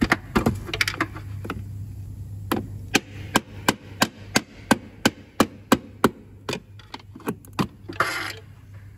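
Pry bar being tapped to work the tight plastic gear-change cable bushings out of their bracket on a Citroen C4 gearbox: a run of light, sharp metallic taps, about three a second, with a short rough scraping noise near the end.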